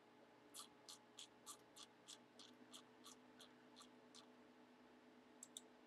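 Faint light clicks, about three a second for a few seconds, then two more near the end, over a low steady hum.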